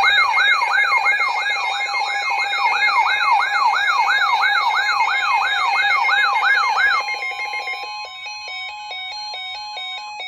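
Weather alert radio sounding its electronic siren alarm for an incoming warning: a wailing tone sweeping up and down about two and a half times a second. About seven seconds in the wail stops, leaving a steady alert tone and a quicker stepped beeping.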